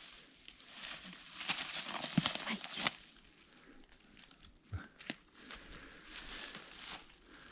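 Rustling and crackling of dry leaves and forest-floor litter as someone moves and handles things in it. It is loudest in the first three seconds, there are a couple of sharp snaps about five seconds in, and then softer rustling.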